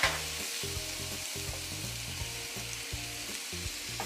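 Diced apples sizzling as they land in melted butter in a hot nonstick frying pan. There is a sharp clatter right at the start as the last pieces tip in from the bowl.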